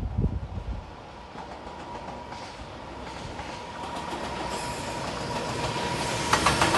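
Freight train hauled by an EF210 "Momotaro" electric locomotive approaching a level crossing. Its noise swells steadily with a thin steady high tone, and near the end it breaks into a loud clatter of wheels on rails as the train reaches the crossing. Wind thumps the microphone in the first second.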